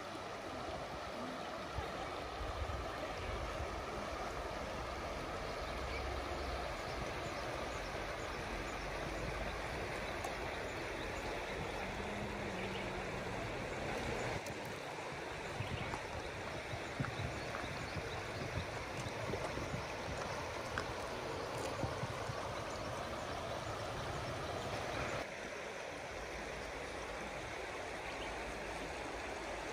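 Steady rush of flowing river water, with a couple of brief dips where the sound shifts, about halfway through and near the end.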